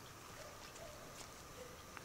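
Faint calls from a flock of white domestic ducks on a pond, a few short soft calls against quiet outdoor background.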